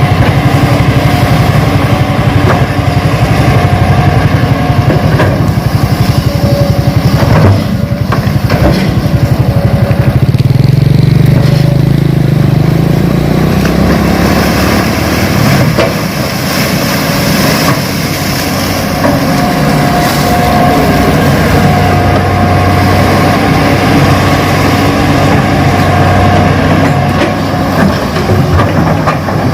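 Engine sound of an RC Hitachi excavator model running, with a fast even low pulse. About ten seconds in it revs up, rising in pitch, then settles back to a steady run, with a single knock just before.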